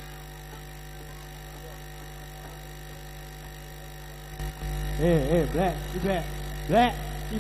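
Steady electrical hum from a loudspeaker sound system, growing louder a little over four seconds in. Near the end, a voice calls out through the loudspeakers in short shouts that rise and fall in pitch.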